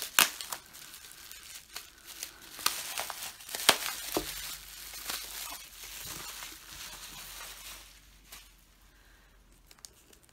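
Plastic bubble wrap crinkling, with many sharp crackles, as it is pulled off a small box and pushed aside; the handling dies down about eight seconds in.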